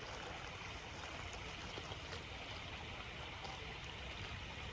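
Creek water flowing, a steady, even rush.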